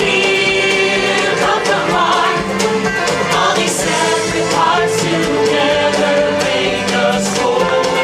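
Loud show music with a choir singing over a steady beat.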